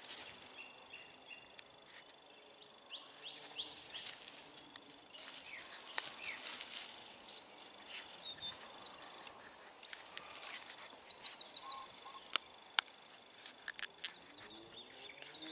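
Wild birds singing, with repeated short whistled notes and quick trills. Scattered sharp clicks and rustles come from cord being wound and pulled tight around a willow bark container.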